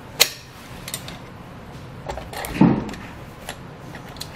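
Metal surge brake actuator handled on a board: a sharp click just after the start, light taps, and a dull knock about two and a half seconds in.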